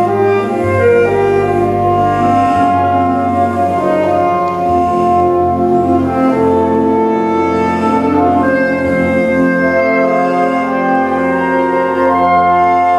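Live concert band playing a slow passage of long held chords, brass and woodwinds together.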